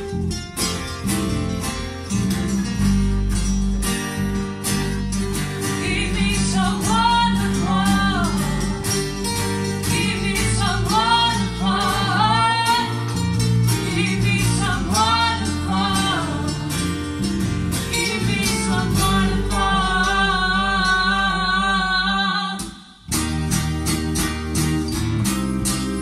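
Live acoustic band music: acoustic guitar strumming under sung melody lines that glide and waver, ending in a long held note with vibrato. The music drops out for a moment near the end, then the guitar strumming starts again.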